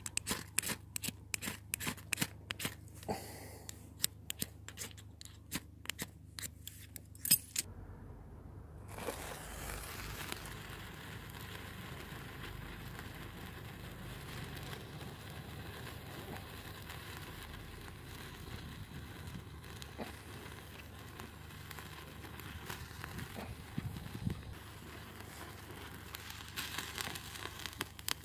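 Ferrocerium (ferro) rod struck again and again over dry wood shavings, a quick series of sharp scrapes that throw sparks to light the tinder. After about eight seconds a steady hiss with light crackles follows as the shavings catch and burn.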